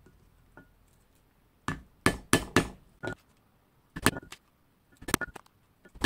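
A mallet striking a multi-prong stitching chisel, punching stitching holes through a tooled leather strap resting on a poly board. About ten sharp knocks come in pairs and short runs, starting about a second and a half in.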